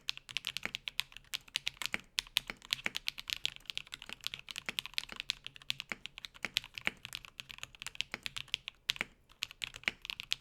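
Fast, continuous typing on a TKC Portico gasket-mounted 65% mechanical keyboard with lubed and filmed Alpaca V2 linear switches in an FR4 plate, with felt case foam. It is a dense stream of keystrokes that breaks off abruptly at the end.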